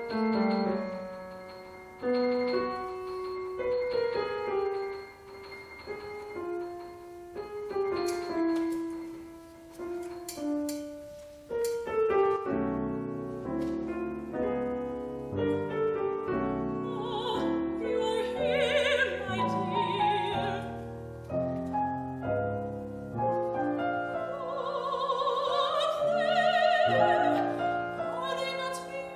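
Grand piano playing sparse, separate notes, then a fuller texture with low bass. About two-thirds of the way through, a high operatic woman's voice with wide vibrato comes in over the piano.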